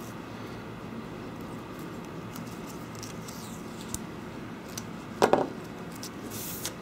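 Quiet handling of an adhesive strip and small tools on a rubber work mat, with faint ticks and one short, sharp knock about five seconds in as a pair of tweezers is set down.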